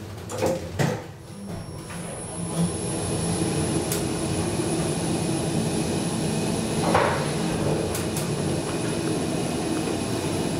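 KONE TranSys machine-room-less traction elevator car travelling between floors: a steady running rumble with a faint high whine, after a couple of clicks at the start. There is a short swell of noise about seven seconds in.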